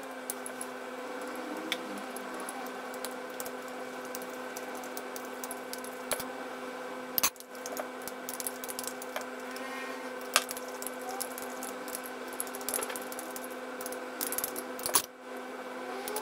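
Metal teaspoon stirring a thick paste in a small glass bowl, with scattered clinks of spoon on glass and a few louder knocks, over a steady hum of held tones.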